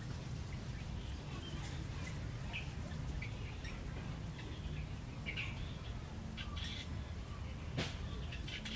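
Faint, scattered bird chirps over a steady low rumble, with one sharp click near the end.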